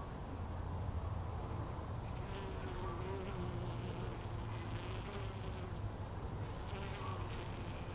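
A bee buzzing in flight close by, its hum wavering in pitch and coming and going, strongest from about two to four seconds in and again briefly near seven seconds, over a low steady rumble.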